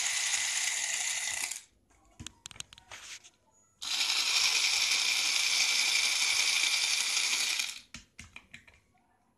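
Cordless electric screwdriver running to back out the screws of a plastic blender base, in two runs: about a second and a half, then about four seconds. Small clicks and knocks of the tool and the plastic housing fall between and after the runs.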